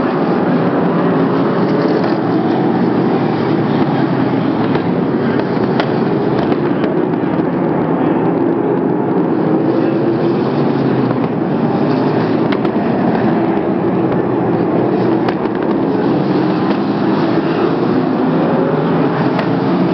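Sprint car V8 engines running at racing speed on the oval, loud and unbroken, their pitch slowly rising and falling as they go through the laps, with a few sharp ticks.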